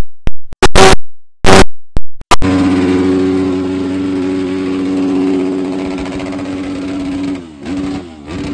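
A vehicle engine running at a steady pitch, then its pitch dipping and recovering again and again in quick succession near the end. The first couple of seconds hold a few short, abrupt bursts of loud sound broken by silences.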